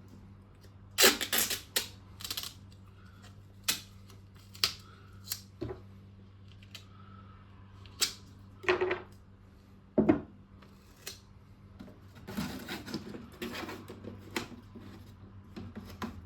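Cardboard and adhesive tape being handled: irregular taps, clicks and crinkles, with a short cluster about a second in and a longer stretch of rustling about three-quarters of the way through.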